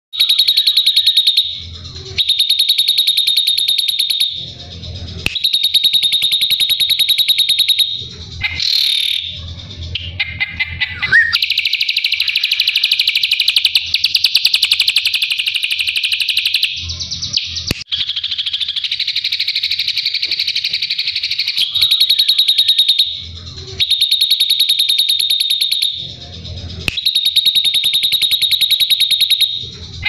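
Caged ashy drongo singing in rapid-fire trills: runs of very fast repeated sharp notes, each a few seconds long and broken by short pauses, with one longer unbroken run about halfway through.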